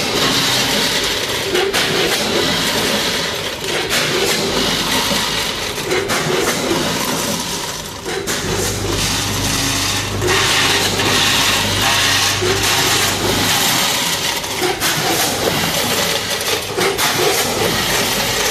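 A 10-head multihead weigher running with fried dough twists: the twists rattle through the vibrating feed pans and hoppers while the hopper gates clack open and shut at irregular moments. A low machine hum comes and goes underneath, strongest a little after the middle.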